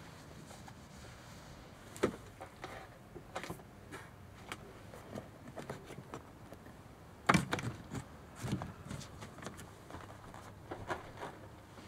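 Scattered knocks, taps and clicks from hands handling the worn interior of an old caravan: rummaging among loose wiring on the floor and pushing at the ceiling panels. The louder thumps come about two seconds in and about seven seconds in.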